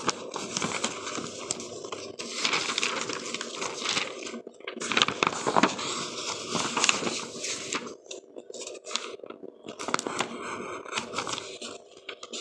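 Spirit box radio sweeping through stations: dense crackling static chopped into short bursts, with brief dropouts about four and a half seconds in and near the end.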